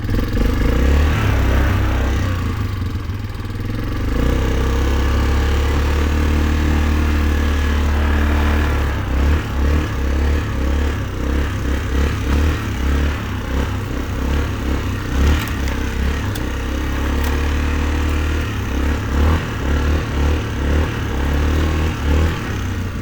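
2004 Yamaha Kodiak 450 ATV's single-cylinder four-stroke engine running under load while being ridden in low range, its pitch rising early on, with the low engine sound pulsing unevenly in the second half.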